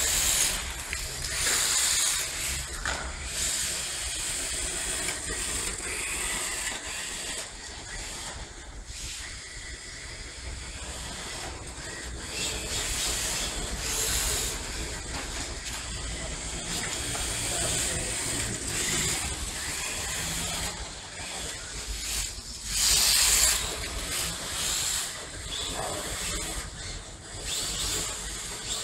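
Radio-controlled drift cars, among them a Yokomo Drift Master RWD, sliding through corners on a polished stone floor: a hiss of hard drift tyres skating on the stone, which swells and fades as the cars drift, loudest about three-quarters of the way through.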